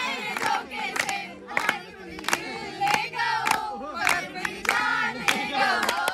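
A group of young people singing together in unison, with hand clapping in a steady beat, a little under two claps a second.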